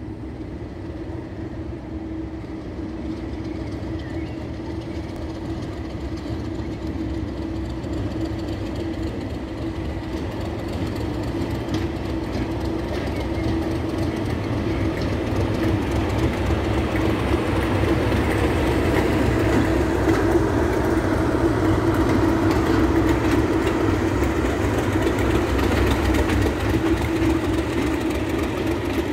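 Class 37 diesel locomotive 37601 running light engine, its English Electric V12 diesel engine running with a steady droning tone. It grows louder over the first half as the locomotive approaches, then stays loud as it passes.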